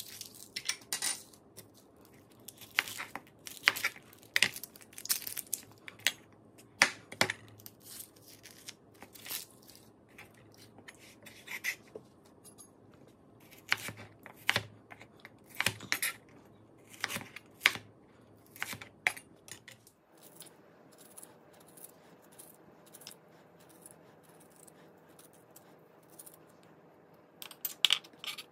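Shallots being peeled and sliced with a chef's knife on a plastic cutting board: an irregular run of sharp knife knocks and clicks against the board, with papery skins tearing. About two-thirds through the knocks stop and only faint room noise remains, until a few more knocks near the end.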